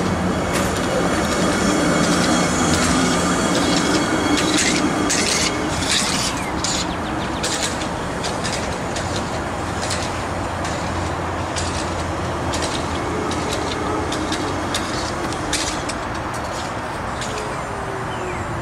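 TTC CLRV streetcar rounding a tight loop curve at low speed. A low motor hum is heard, with a run of sharp clicks and squeals from its wheels on the curved rails, most between about four and eight seconds in. The sound fades gradually as the car moves away.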